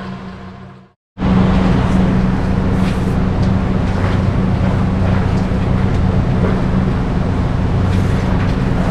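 A motor-driven machine running steadily with a low hum and a rough, grinding noise over it, cutting in abruptly about a second in after a brief gap.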